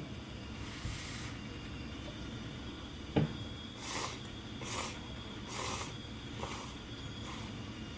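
Instant cup noodles being slurped, five short slurps a little under a second apart, after a single thump about three seconds in.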